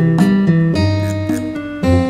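Background music: a melody of plucked string notes.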